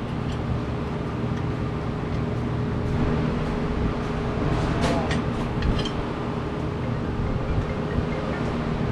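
Steady mechanical hum of running machinery in a welding shop, holding several fixed tones, with a few short metallic clinks about five seconds in.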